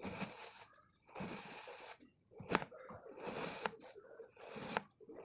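Kinetic sand being cut and scraped with a comb: a series of gritty scraping strokes, each about a second long with short pauses between them, and a few sharp clicks, the clearest about two and a half seconds in.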